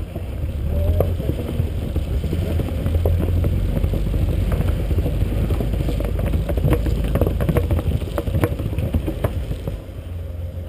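BMW E36 328i's inline-six engine running as the car drives along, heard close up through a side-mounted camera with wind on the microphone. It gets louder about half a second in and eases off near the end, with scattered sharp clicks in the middle.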